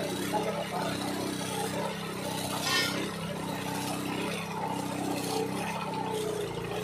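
Small engine of a rail-cutting machine running steadily, its cutting disc set on the rail, with one brief harsher burst a little before the middle.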